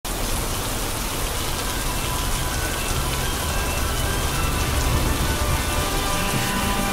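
Steady rain falling, a dense, even hiss of drops on surfaces.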